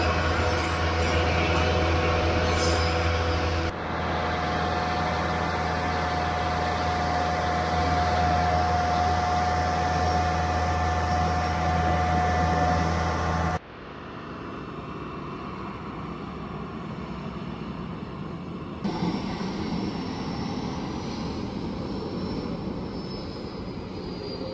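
Engine noise on an airport ramp during an aircraft pushback: a steady hum with several held tones over a noisy wash. The sound changes abruptly three times, turning quieter and noisier for the second half, where a faint high whine falls slowly near the end.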